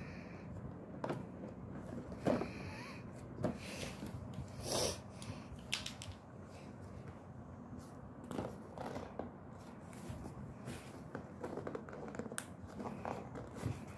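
Hands handling a cardboard coffee-capsule box and pressing open its top flap: scattered taps, scrapes and rustles of the cardboard.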